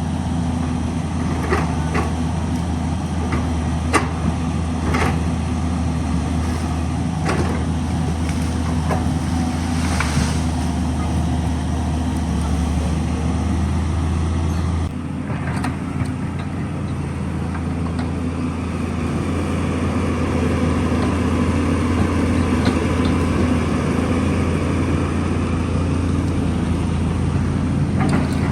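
Caterpillar excavator's diesel engine running steadily, with scattered sharp knocks through the first half. About halfway through the engine sound changes abruptly to a different steady note.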